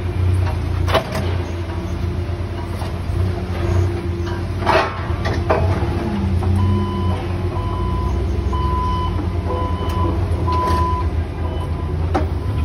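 Clamp forklift running with a steady low rumble and rattle, with a few knocks. From about halfway in, a backup alarm beeps about once a second for several seconds.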